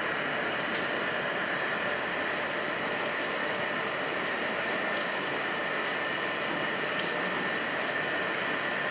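Steady rain falling on rock and ground, with scattered drip ticks and one sharper tick about a second in. A faint steady high hum runs underneath.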